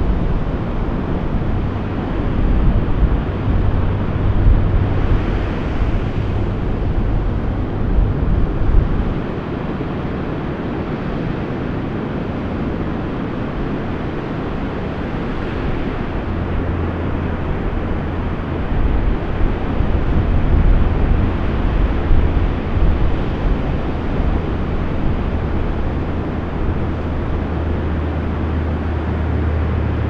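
Heavy ocean surf breaking, a continuous rush of whitewater, with a low rumble of wind on the microphone.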